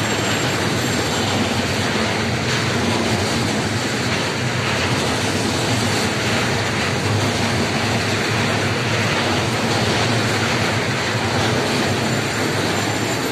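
Container freight train passing close by: the wheels of the loaded container flat wagons rolling along the rails in a steady, loud, continuous rumble and rattle.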